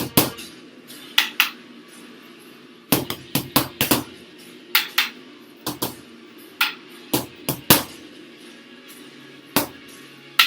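Punches landing on a heavy bag in short combinations of two to four sharp smacks, with pauses of about a second between combinations.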